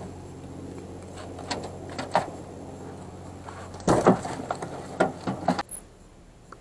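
Knocks and clatter of hands and gear against an aluminium boat's side: a few single knocks, then a rapid cluster of sharp knocks about four seconds in. Under them runs a steady low hum that cuts off near the end.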